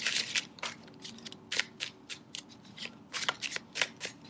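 Deck of tarot cards being shuffled and handled by hand: a quick, irregular string of crisp snaps and flicks as the cards slap against each other.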